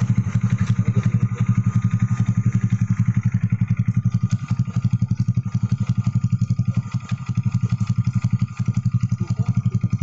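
Honda Click 150i's single-cylinder four-stroke engine idling steadily through an aftermarket Kawahara racing exhaust with a silencer insert in its elbow, an even run of quick exhaust pulses.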